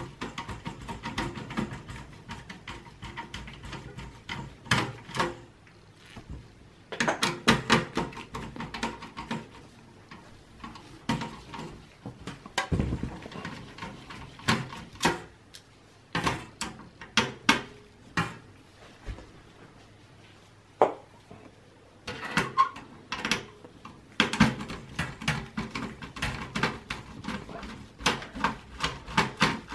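Phillips screwdriver turning out motherboard screws in a steel PC chassis: clusters of rapid small metallic clicks and scrapes with short pauses between them, and a dull knock near the middle.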